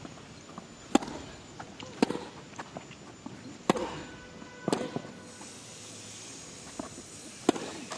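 Tennis ball struck back and forth with racquets in a rally: sharp hits about a second apart, four in the first five seconds, then one more near the end.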